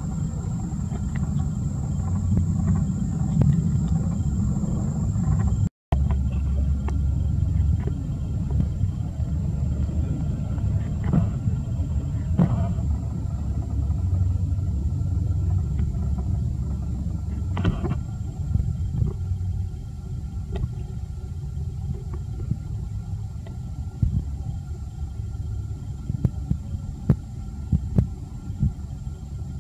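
Steady low outdoor rumble with a few faint clicks, cutting out for an instant about six seconds in.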